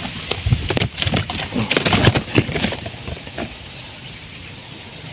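Quick flapping, slapping and rustling of a just-landed crucian carp thrashing in a mesh landing net as it is handled, dying down about three seconds in.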